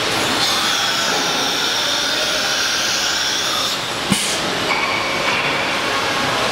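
ATC CNC wood router running with a steady high whine over a hiss. The highest part of the whine drops away a little before four seconds in, a single sharp knock follows just after, and a steadier, lower whine carries on after that.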